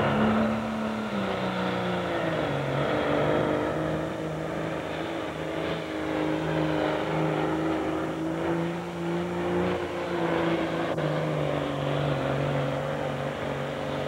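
Super farm class pulling tractor's diesel engine running hard under load as it drags the weight-transfer sled. Its pitch drops slightly about a second in, then holds fairly steady.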